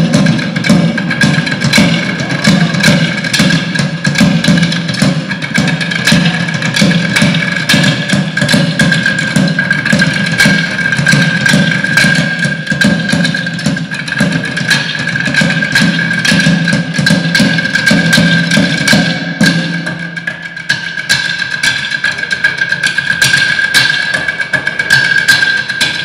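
A drumline playing wooden stools with drumsticks: fast, dense, rhythmic clacking of sticks on wood from several players at once. A deeper layer of beats runs underneath and stops about twenty seconds in, and a steady high whine sounds throughout.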